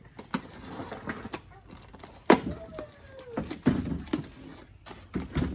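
Cardboard boxes and packaging being handled: scattered knocks and rustling, the loudest a sharp knock about two seconds in. A short falling squeak-like tone follows the knock.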